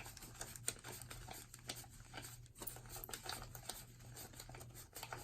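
Cash being counted by hand: faint, irregular rustling of paper bills with light clicks and taps throughout.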